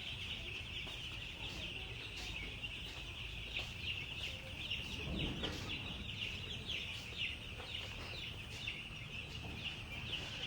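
A flock of broiler chickens peeping together in a dense, continuous chorus of high, short cheeps.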